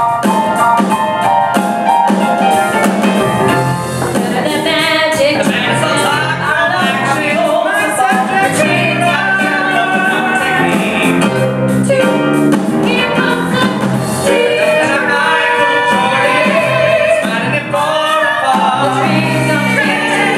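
Live band of piano, drum kit and guitar playing a song, with a man singing lead into a microphone, his voice coming in after about four seconds.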